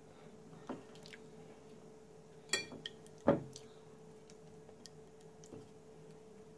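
Silicone pastry brush dabbing and spreading sauce over raw filo pastries on a paper-lined baking tray: soft, wet squishing with a few faint clicks, and two sharper knocks about halfway through. A faint steady hum runs underneath.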